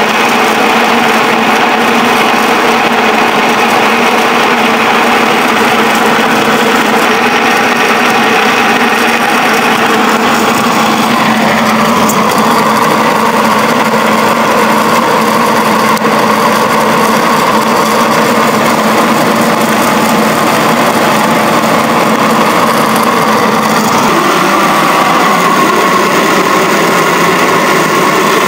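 A 7.5 kW electric pellet mill running steadily under load, pressing a mix of rye straw and spruce sawdust into pellets. Its steady hum shifts in tone about eleven seconds in and again near the end.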